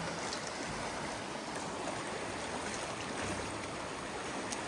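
Shallow creek water running steadily, an even rushing noise, with one short click near the end.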